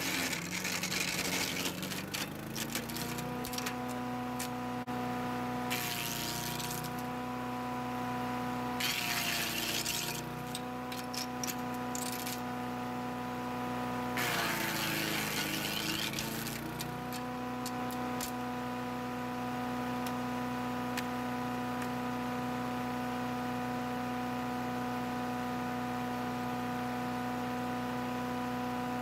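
Wood chipper's engine running steadily, its pitch sagging under load as branches are fed in and chipped with bursts of crackling and snapping: at the start, about 6 and 9 seconds in, and longest around 14 to 16 seconds in, recovering after each.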